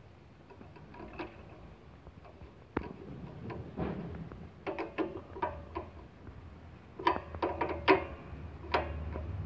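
Socket wrench clicking and clinking on the bolt under a cultivator engine's carburetor float bowl: scattered sharp metal clicks with a short ring, in two bunches, the louder ones in the second half.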